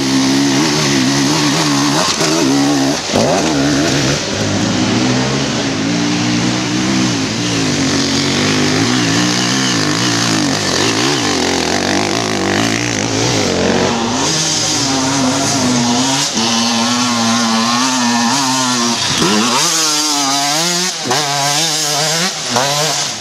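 Dirt bike engines revving hard as riders pass one after another on a loose dirt trail. The pitch climbs and drops with the throttle, and in the second half it wavers quickly up and down as a rider works the throttle.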